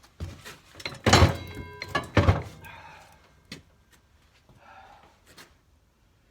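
Heavy metal clunks and thuds as the rear end of a garden tractor is lifted and shifted, the loudest knock about a second in ringing briefly like steel, followed by a man's strained breathing.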